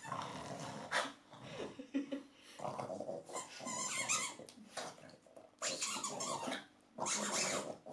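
Boston terrier playing with a toy ball, its sounds coming in several short bursts with brief pauses between.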